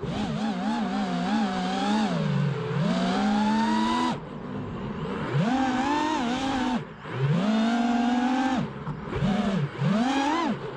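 Brushless motors of a 5-inch FPV freestyle quadcopter (Hyperlite V2 2206 2600kv) whining in flight, the pitch rising and falling with the throttle. The whine drops away briefly several times on throttle cuts, quickly one after another near the end.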